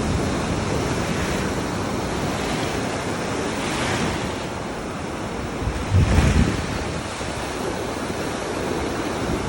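Ocean surf: a steady wash of waves with swells about four and six seconds in. Wind buffets the microphone with a brief low rumble around the second swell.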